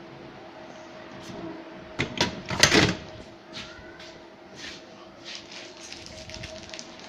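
Ceiling fan humming steadily, with a loud cluster of knocks and clattering about two seconds in and scattered lighter clicks afterwards.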